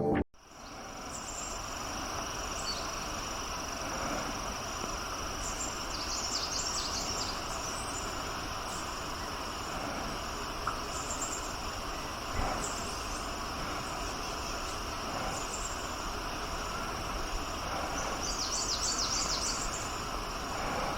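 Forest ambience dominated by a steady, high-pitched insect drone, like crickets or cicadas. Small birds twitter in quick bursts twice, about six seconds in and again near the end, with scattered faint chirps between.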